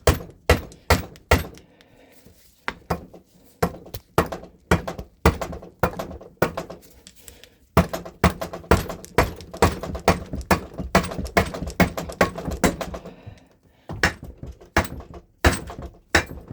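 Repeated hammer knocks on the cylinder head of a Suzuki DS100 two-stroke engine, about two to three sharp strikes a second with a couple of brief pauses. The blows are aimed at breaking the head free of the cylinder at the head gasket.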